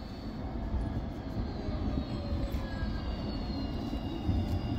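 Tram running in slowly with a low rumble and a high electric whine that falls steadily in pitch as it slows for the stop.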